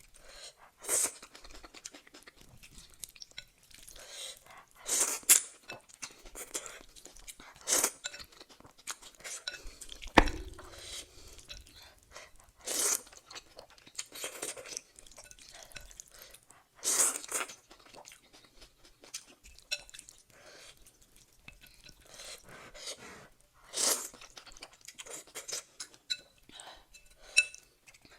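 Close-miked eating sounds: chewing and crunching in separate bites every second or few, with light clinks of cutlery against a bowl and one sharp knock about ten seconds in.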